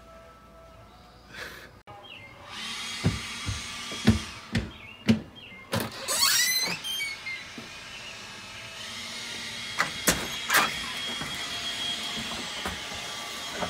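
A house's front door being opened: a series of sharp clicks and knocks from the latch and door, a squeaking hinge that rises in pitch about halfway through, then footsteps.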